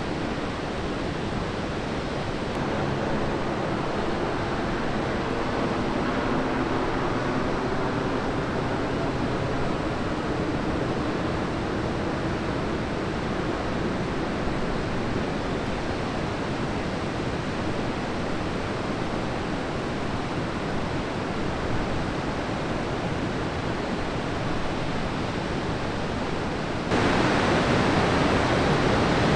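Ocean surf breaking, heard as a steady wash of noise, which jumps louder and brighter near the end.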